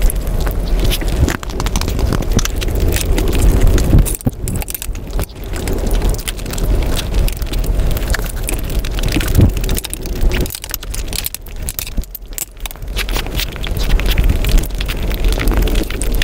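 Close-miked eating sounds sped up about five times: a dense, unbroken run of rapid clicks and smacks from chewing and from fingers working rice as chicken biryani is eaten by hand.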